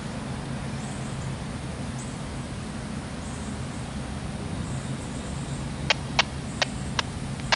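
Distant diesel locomotive rumbling steadily, with insects chirring high in short patches. About six seconds in, a quick run of five sharp clicks.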